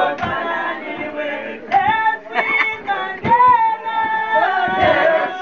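A group of men and women singing together in chorus, with long held notes.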